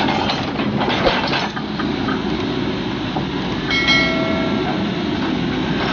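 Volvo EC210D excavator's diesel engine running steadily, with a few knocks in the first second or so and a brief high squeal about four seconds in.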